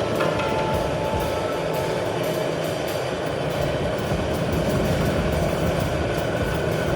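Improvised experimental music from turntables and drums: a dense, steady rumbling noise texture with a few faint thin tones and light ticking on top.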